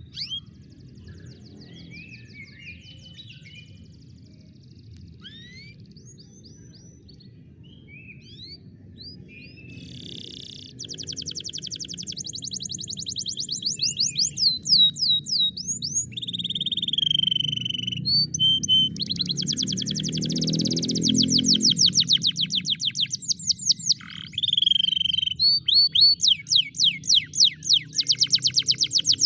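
Domestic canary song: scattered chirps and sweeping notes that give way, about ten seconds in, to long, fast, dense trills of rapidly repeated notes, getting louder toward the end. A soft music backing runs underneath.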